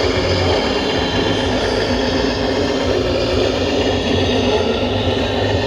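Scale RC model trucks and construction machines running: a steady mechanical hum of motors and gearing, with several steady high tones over it.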